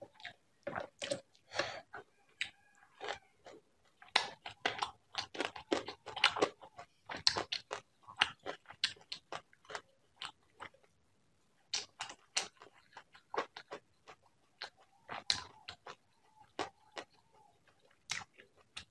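Close-miked eating sounds of rice and prawn curry: wet chewing, lip smacks and crunchy bites in quick, irregular clicks, with two short pauses.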